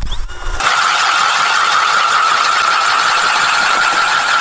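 DeWalt cordless drill spinning a 6-inch K-Drill ice auger and boring a hole through lake ice. It starts suddenly about half a second in and runs as a steady whine over a rough hiss.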